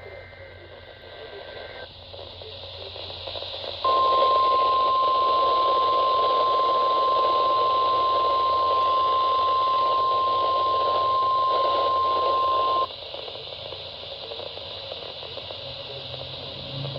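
NOAA Weather Radio weekly-test signal heard through a receiver over steady static hiss. It opens with two faint steady high tones for about two seconds. About four seconds in comes the 1050 Hz warning alarm tone, one loud steady beep held about nine seconds, which then cuts off to hiss.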